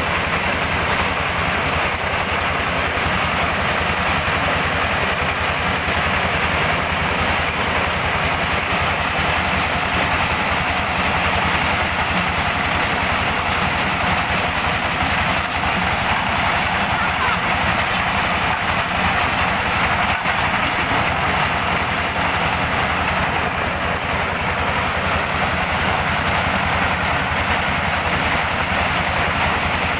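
Mobile diesel-powered corn sheller running steadily under load, its engine and threshing drum working as corn cobs are fed through and shelled.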